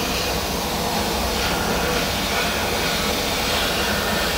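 Sandblasting cabinet's blast gun running with a steady, unbroken hiss as abrasive is blasted at heat-treated parts, stripping off the heat-treatment scale.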